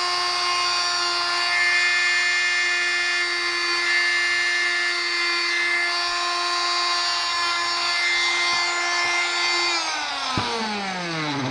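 Electric oscillating multi-tool running at a steady high pitch as it cuts into a pumpkin. About ten seconds in it is switched off and its pitch falls steadily as the motor winds down.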